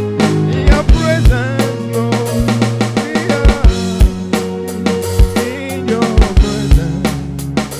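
Church worship band playing, with a drum kit's kick and snare keeping a steady beat under sustained bass and melodic instruments.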